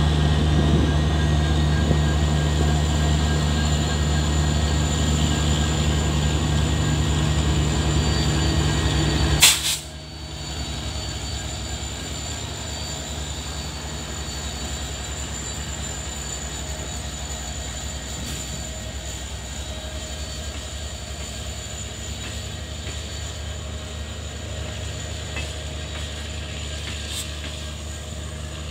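Indian Railways diesel locomotive engine running with a steady low drone. About nine seconds in, a sharp crack, then the sound drops abruptly to a quieter, steady rumble of a moving train with a faint high-pitched whine.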